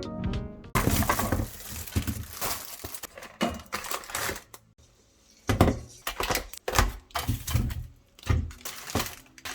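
Piano-led background music that cuts off under a second in, followed by a string of irregular knocks, clicks and rustles from objects being handled.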